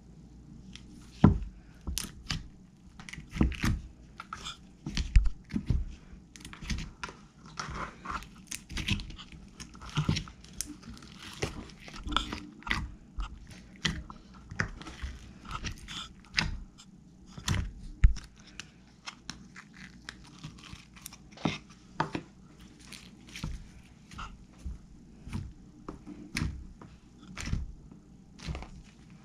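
Handmade slime being squeezed and worked by hand, giving a continual run of irregular wet pops and clicks, several a second, with a few sharper pops standing out.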